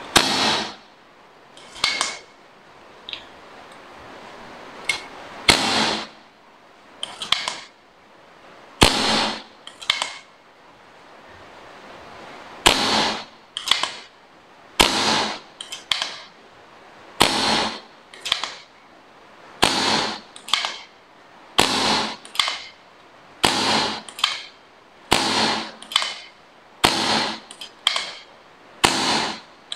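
Blue hand air pump charging a homemade air gun's fire-extinguisher air tank: a stroke with a short rush of air about every second. The strokes are uneven at first and settle into a steady rhythm about twelve seconds in.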